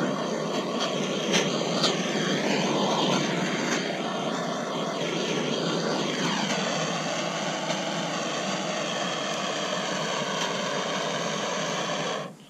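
Handheld gas torch burning with a steady hiss while it singes the pin feathers off a plucked chicken. It cuts off suddenly near the end as the valve is closed.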